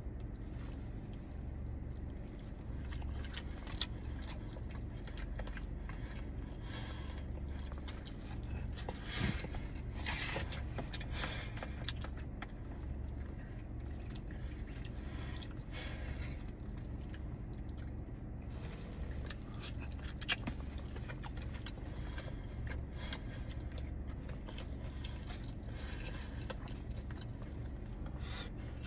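Someone eating rice and beans and stewed goat: a utensil scraping and clicking against a takeout container, with chewing, over a steady low hum.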